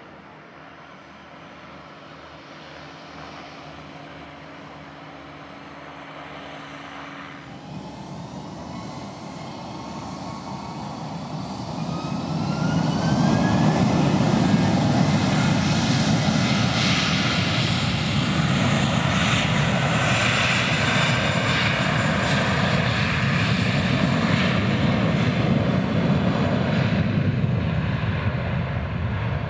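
Airliner engines on the runway: faint distant engine noise at first, then a rising whine as engines spool up about ten seconds in, followed by loud, steady engine noise at high power.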